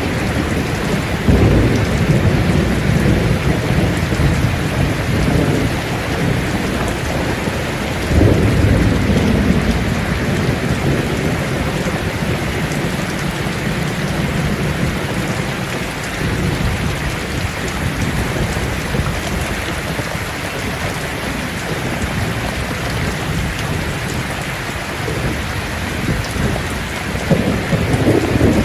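Steady rain falling on leaves, with low thunder rolling in about a second in, again around eight seconds in, and once more near the end.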